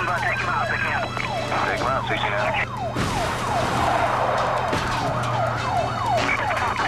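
Police car sirens yelping in fast rising-and-falling sweeps, about three a second, over a steady low hum.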